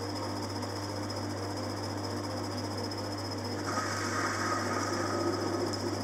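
Metal lathe running with a steady low hum and a thin high whine while the tool cuts the cast flywheel, shedding chips. A little past halfway the cutting noise grows louder and harsher for about two seconds, then eases.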